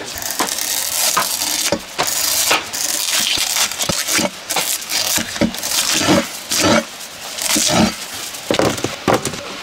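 Fresh wild bamboo shoots being cut up with a knife on a chopping board: an irregular run of sharp crunching chops with crackle between them.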